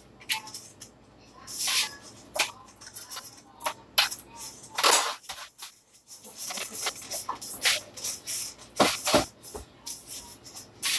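Scattered sharp clicks, taps and knocks of kitchen work at a stove, with a short hiss about five seconds in.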